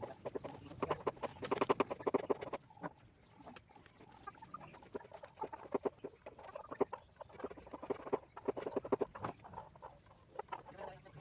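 Poultry calling in several rapid pulsed bouts, a run of quick clucks about a second in, another around five to six seconds, and a longer one near eight to nine seconds.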